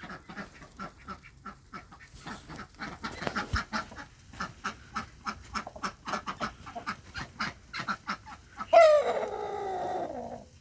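Chickens clucking in a steady run of short calls, then one long, loud call falling in pitch near the end.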